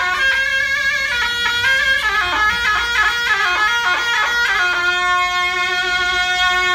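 Solo zurna, the Turkish double-reed shawm, playing a folk tune: held notes, then a quick run of short ornamented notes in the middle, then a long held note near the end.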